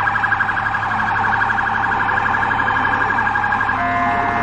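Electronic police siren warbling rapidly up and down, switching near the end to a steadier, broken tone.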